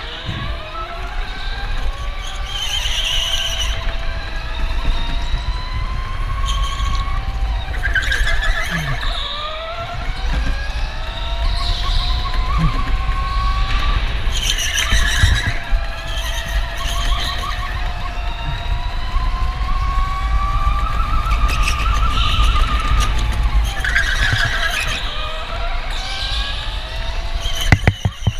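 Electric go-kart driven hard: the motor's whine rises and falls with speed, and the tyres squeal in short spells through the corners over a steady low rumble of wind and vibration on the camera. A quick rattle of knocks comes near the end.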